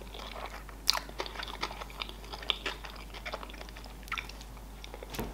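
A person chewing a mouthful of sushi roll close to the microphone, with irregular small wet mouth clicks.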